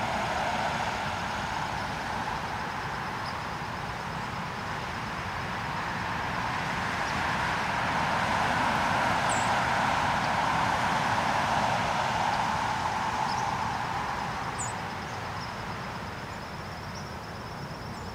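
Rushing noise of a passing road vehicle, swelling to its loudest about halfway through and then fading away.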